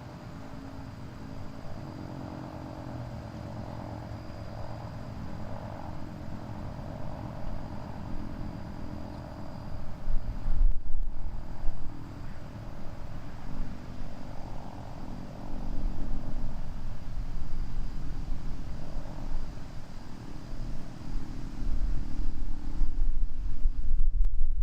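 Federal Signal 2T22 dual-tone outdoor warning siren sounding from a distance, its two tones held fairly steady while swelling and fading. Strong wind buffets the microphone throughout, in loud gusts about ten seconds in and again near the end.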